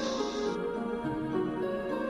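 Soft, calm background music with sustained notes changing slowly from one to the next.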